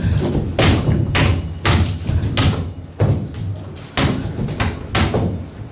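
Bare feet and bodies of dancers thudding on a stage floor: a string of heavy thumps and slaps at an uneven pace, about two a second.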